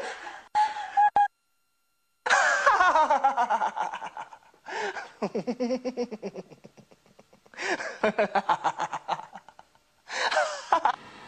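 A person laughing in runs of quick, breathy pulses, sliding down in pitch. The laughter breaks off abruptly several times where the recording drops out.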